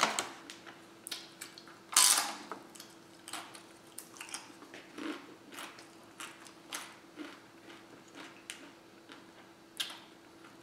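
A fork clicking and scraping in a takeout container as it cuts into a burrito: a run of small irregular clicks, with a louder rustle or clatter about two seconds in and another near the end. A faint steady hum sits underneath.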